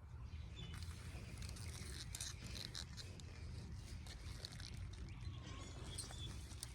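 Rustling, crackling and scraping of tulip stems and leaves being handled and pulled during harvest, in many short irregular strokes from about a second in, over a steady low rumble.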